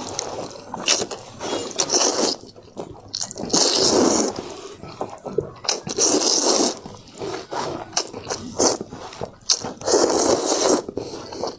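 A person slurping and eating wet noodles close to the microphone, with a series of squishy slurps each lasting about half a second to a second.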